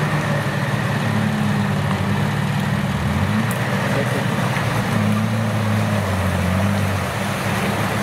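Off-road 4x4's engine running, its pitch shifting up and down a few times as the revs change.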